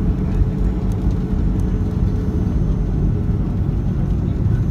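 Steady low rumble of a jet airliner's engines and wheels, heard from inside the cabin as it rolls down the runway after landing. A low steady hum comes in near the end.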